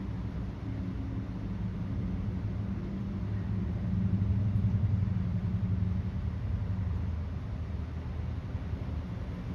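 Engine running with a low, steady rumble, growing louder about four seconds in and then easing off again.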